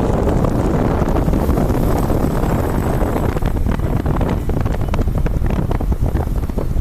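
Wind buffeting the microphone over a steady low road rumble from a moving vehicle, with many short sharp ticks in the second half.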